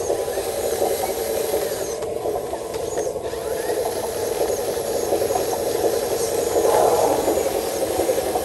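Radio-controlled Hino model truck's electric drive motor and gearbox whirring steadily as it crawls over rough dirt towing a flatbed trailer. Faint short high chirps repeat in the second half.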